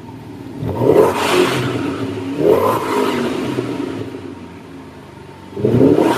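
Vauxhall Monaro VXR's V8 running through a Vortex stainless steel performance exhaust, blipped three times from idle: about a second in, at about two and a half seconds, and again near the end, each rev falling back to idle.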